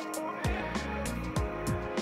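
Background music with a steady beat of deep kick drums and hi-hats over sustained notes.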